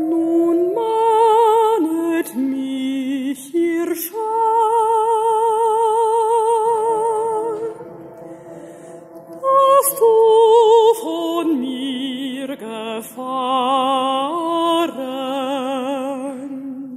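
Mezzo-soprano singing long held notes with a wide vibrato over sustained organ tones. The voice drops out for a moment around eight seconds in, then comes back.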